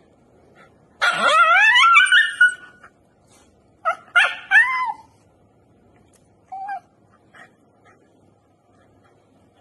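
Shiba Inu whining and yelping in protest while its claws are clipped. One long, loud whine rises in pitch about a second in, followed by a few short yelps around four seconds in and a brief one near seven seconds.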